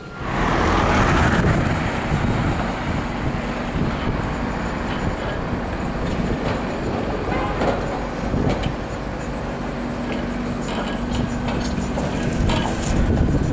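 A 1953-built Blackpool Coronation electric tram running past close by on street track: wheels rumbling on the rails under a steady low motor hum, growing loud right at the start. A brief burst of higher-pitched wheel noise and a few clicks come near the end as it goes by.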